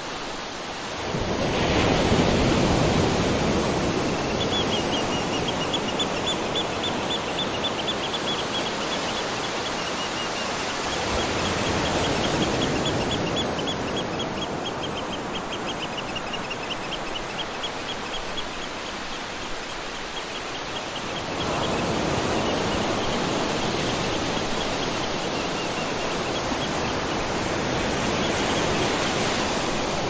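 Waterfall rushing steadily, swelling louder about a second in and again about two-thirds of the way through. Over it, a high chirping repeats rapidly for about fifteen seconds from a few seconds in.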